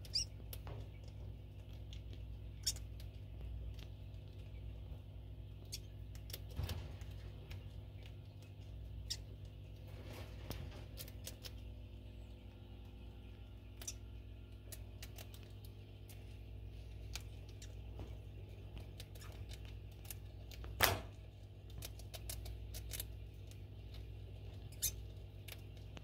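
Degu gnawing and chewing food held in its paws: small, irregular crunching clicks with a few sharper cracks, over a steady low hum.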